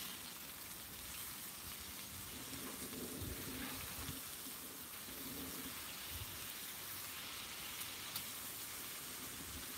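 Burger patties and bacon sizzling on a Blackstone flat-top griddle: a steady frying hiss, with a few faint scrapes of a metal spatula as the patties are flipped.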